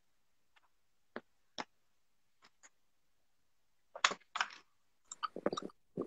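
Quiet room with a few faint isolated clicks, then a cluster of sharp taps and knocks about four seconds in from a hand handling the streaming device.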